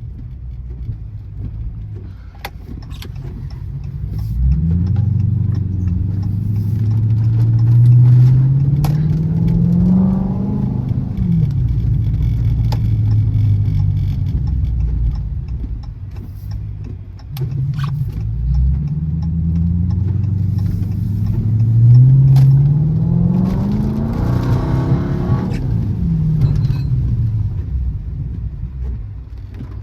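Chrysler 300C's engine accelerating hard twice, its note climbing steadily through each pull and then falling away, first about four seconds in and again about eighteen seconds in.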